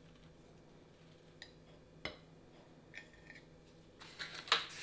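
Faint handling sounds as a chocolate cupcake is broken open: a few scattered light clicks, then a quicker cluster of clicks and scrapes near the end.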